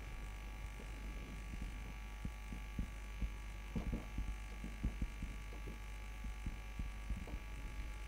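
Faint scattered ticks of a marker pen writing on a whiteboard, over a steady electrical hum.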